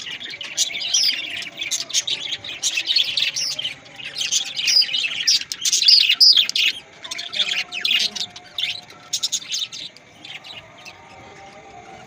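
A flock of budgerigars chattering, with many quick high chirps overlapping one another; the chatter thins to a few scattered chirps near the end.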